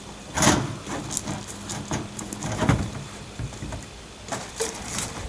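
A string of knocks and clunks from things being handled, the loudest a thump about half a second in, with more clatter around the middle and near the end, over a faint steady hum.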